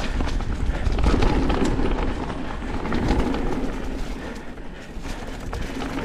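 Mountain bike rolling down a dirt trail: steady tyre noise on the ground with frequent rattling clicks from the bike over bumps.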